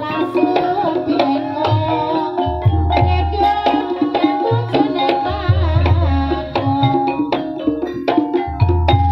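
Javanese gamelan music accompanying an ebeg horse dance: kendang hand drums beating over held pitched tones, with a deep boom every second or two.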